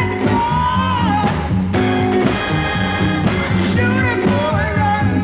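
1960s soul and R&B band music: a driving bass and drum groove with electric guitar, and a male lead voice singing over it.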